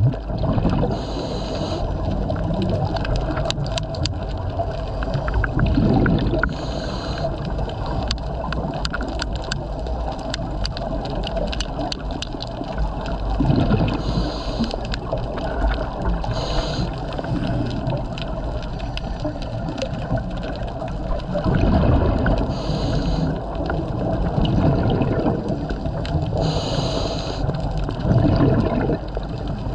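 A scuba diver breathing through a regulator, heard underwater: a bubbly exhalation every seven or eight seconds over a steady low rumble, with short hissing breaths in between and scattered clicks.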